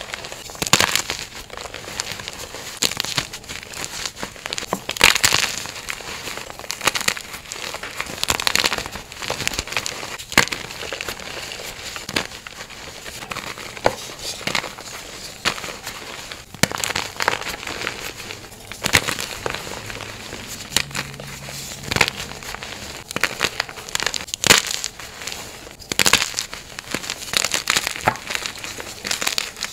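Reformed gym chalk blocks crushed and crumbled by hand into loose powder: continuous dry crunching and crackling, with louder crunches every second or few as the hands squeeze.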